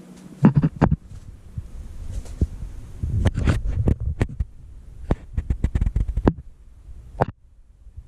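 A series of irregular sharp clicks and knocks with low thumps, in clusters: a few about half a second in, a run around three to four seconds in, a denser run between five and six seconds, and a single one near the end.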